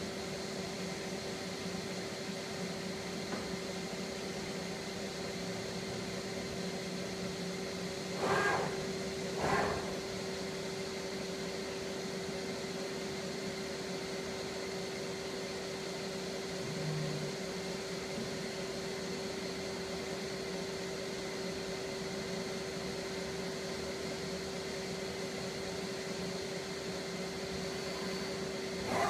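Daewoo Puma 12L-B CNC lathe running under power, a steady hum with several held tones. There are two brief whooshes about eight and nine and a half seconds in.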